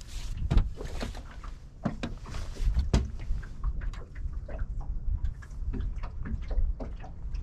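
Irregular knocks and thumps of footsteps and handling on a fishing boat's deck, over a constant low rumble.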